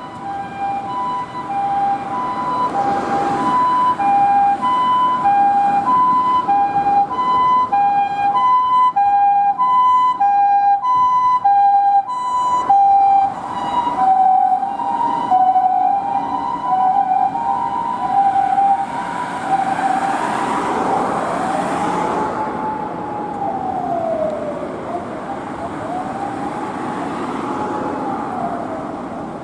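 Japanese ambulance siren sounding its two-tone call, alternating between a high and a low tone, each held under a second. The pitch drops a little about halfway through as the ambulance passes. From about 20 s in, it gives way to two slow rising-and-falling wails.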